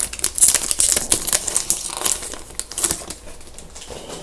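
Crinkling and crackling of a trading-card pack wrapper as it is torn open and handled, dying down near the end.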